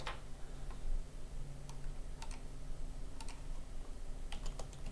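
A handful of scattered clicks from a computer mouse and keyboard, over a low steady hum.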